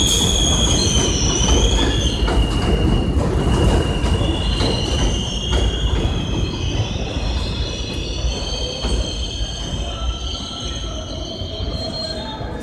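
R160 subway train moving past on an elevated station track, its wheels squealing in several high, wavering tones over the rumble and clatter of the cars. The sound slowly fades as the train pulls away.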